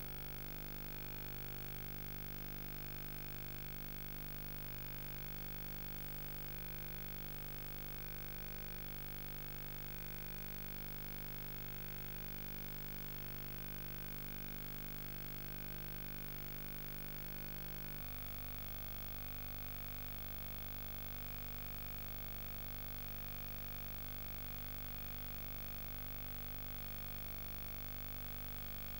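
Steady electrical hum and hiss with no programme sound: the background noise of a soundless Betamax tape transfer. The hum's tone changes abruptly about 18 seconds in.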